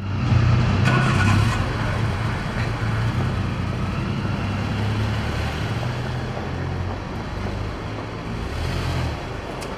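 Street traffic noise: a steady low rumble of car engines, a little louder in the first second or two.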